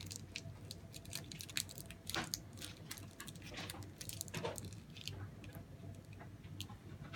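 Scattered small clicks, crinkles and short rustles of a plastic slime-kit powder packet being handled and pulled at to tear it open, with a couple of longer rustles about two and four and a half seconds in.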